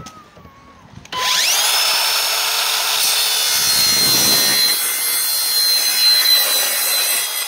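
Circular saw spinning up with a rising whine about a second in, then cutting an angled end on a vinyl top rail, running steadily with a high whine over the cutting noise.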